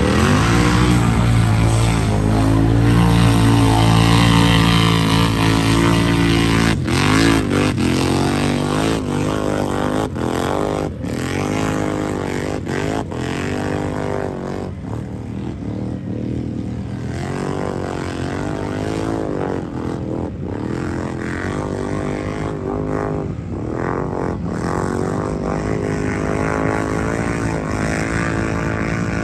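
ATV engines revving hard in a mud race. They run at full throttle for the first six seconds or so, then surge up and down in pitch again and again.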